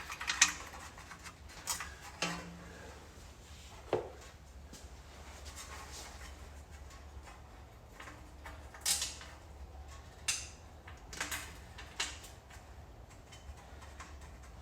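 Irregular light metal clinks and taps, a dozen or so, some ringing briefly, as bolts are handled and started into the corners of a transmission pan to hold its new gasket. A steady low hum runs underneath.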